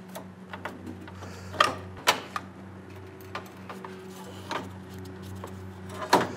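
Scattered knocks, clicks and rattles of a 2004 Chevrolet Silverado's AC condenser being wiggled loose and lifted out of the radiator support, the sharpest knocks about one and a half and two seconds in, over a steady low hum.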